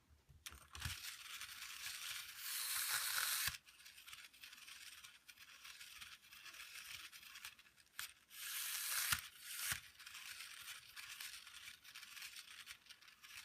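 Small clockwork wind-up toy bear running: a faint whirring hiss from its spring mechanism, louder twice for about a second each, with a few sharp clicks.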